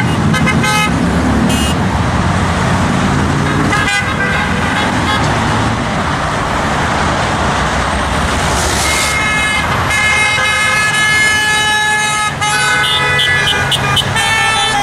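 Steady highway traffic with several car horns honking, one long, sustained honk and overlapping blasts in the second half, drivers sounding their horns in support of the rally.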